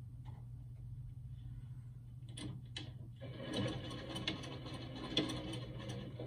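Juki sewing machine stitching through the mask's layered vacuum-bag material: a couple of clicks, then the machine runs at a fast, steady stitch for about three seconds, starting about halfway in.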